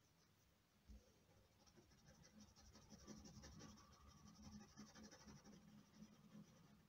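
Faint scratching of a pointed wooden stick through a top layer of dark oil pastel on paper (sgraffito), a run of quick short strokes.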